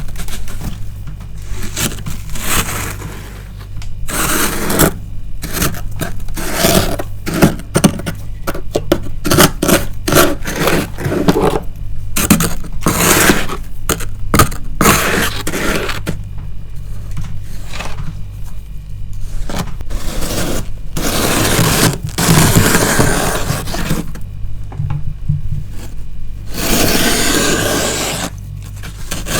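Frost being scraped off the inside of a freezer: a run of scraping strokes, mostly short and quick, with a few longer drawn-out ones near the end, over a steady low hum.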